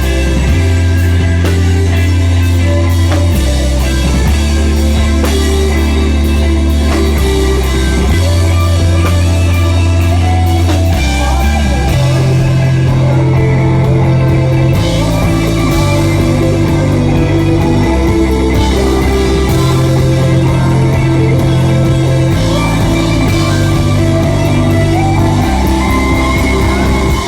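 Rock band playing live, loud: held bass notes shifting every few seconds under guitars and drums, with some singing.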